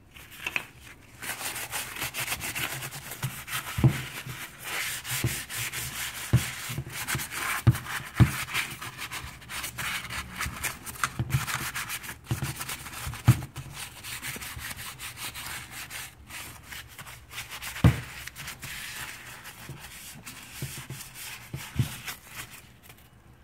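Paper towel damp with rubbing alcohol rubbed and scrubbed over an AR-15's receiver and barrel, degreasing the metal before painting. The rubbing is continuous, with a few soft knocks scattered through it.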